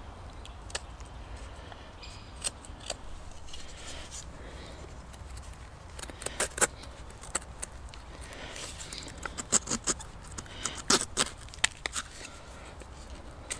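Small knife cutting and scraping at a twine-bound wooden stick: scattered short, sharp clicks and scrapes, coming thicker in the second half.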